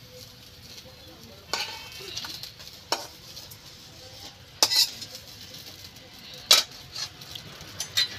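Metal spatula clinking and scraping against a steel bowl and a pan of fish curry cooking over a wood fire, about five sharp clinks a second or two apart, over a faint sizzle from the pan.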